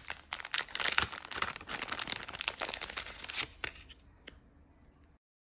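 Close, crackly crinkling and tearing of a small sheet of paper being handled, dying away after about three and a half seconds into a couple of light taps.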